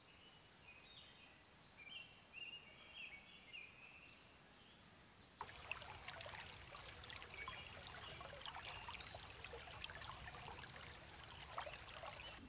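Faint outdoor ambience with a few soft bird calls, then about five seconds in a sudden change to a dense, irregular crackling, trickling sound.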